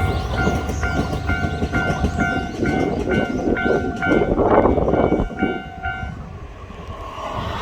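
Japanese level-crossing warning bell ringing about twice a second while a train passes over the crossing; the train's rumble and wheel noise swell about halfway through, then fade near the end, leaving the bell.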